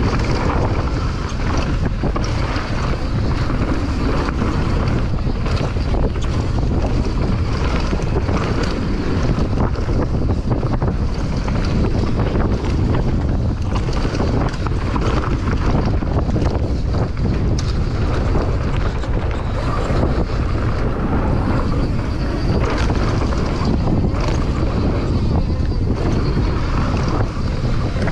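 Wind buffeting the microphone of a point-of-view camera on a downhill mountain bike at speed, over a steady deep rumble of tyres on a dirt trail. Many quick clicks and knocks from the bike rattling over roots and rocks run through it.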